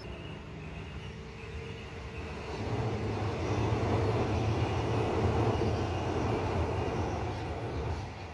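Adelaide Metro A-City 4000 Class electric multiple unit crossing a railway bridge, its wheels rumbling over the span. The rumble builds about two and a half seconds in, holds loud through the middle and eases off near the end as the train clears the bridge, with a faint high whine before it arrives.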